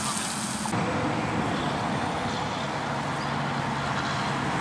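Car engine running with tyre noise on wet pavement. Under a second in the sound changes abruptly to a duller, steady low hum.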